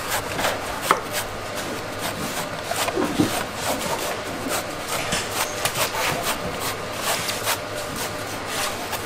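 A knife cutting and shaving the husk of a coconut: an uneven run of sharp chops and scrapes, a few a second.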